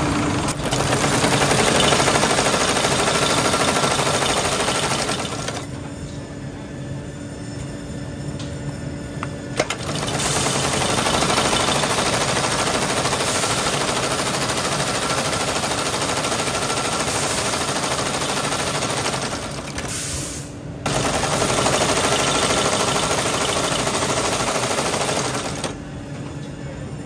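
Heavy industrial sewing machine stitching leather boot parts, running as a fast run of needle strokes. It goes quieter for a few seconds early on, stops briefly about two-thirds through, then runs again.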